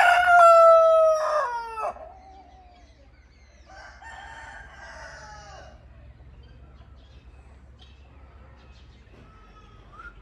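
Rooster crowing: one long, loud crow that holds and then drops in pitch as it ends, about two seconds in. A fainter, similar call follows about four seconds in.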